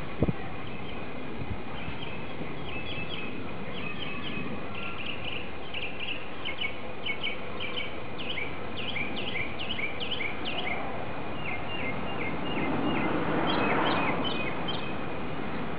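A bird chirping in quick runs of short, high, falling notes, several to a second. About thirteen seconds in, a brief rustling in the grass as the cat grapples with the chipmunk.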